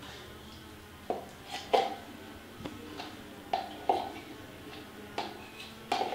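A handheld plastic topping container being shaken and tapped over a frosted cake: a string of irregular short knocks and clicks, about nine in all, with one louder one near the two-second mark.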